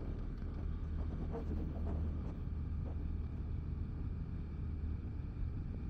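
Steady low rumble of railway platform ambience, with a few faint knocks and clicks in the first couple of seconds.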